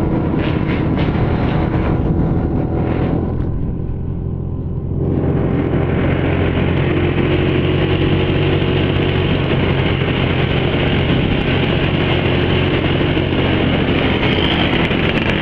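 Motorcycle engine running while riding along, with wind rushing over the microphone; the sound eases off briefly about four seconds in, then holds steady.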